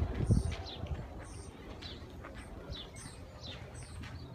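Small birds chirping, a quick run of short, falling chirps, two or three a second, with a low thump in the first half second.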